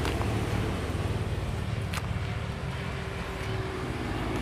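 An engine running steadily at low revs, with a single sharp click about two seconds in.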